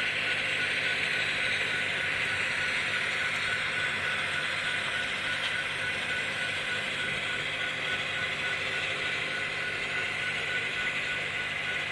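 Model trains running on a layout: a steady whirring hiss of the locomotive motors and wheels on the track, over a faint low hum.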